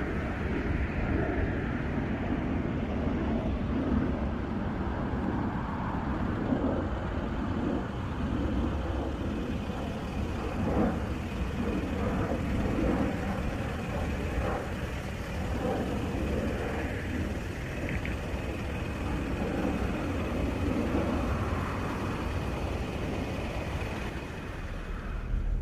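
Steady road and engine noise from inside a moving car, a low rumble throughout.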